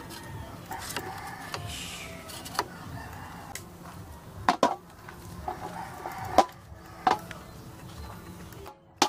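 Tin cans knocked and set down on a cast-iron table: half a dozen separate sharp metallic knocks spread over several seconds, the loudest a little past the middle.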